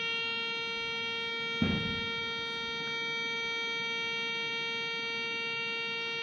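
A steady electronic buzzing tone, mid-pitched and unchanging, with one knock about one and a half seconds in.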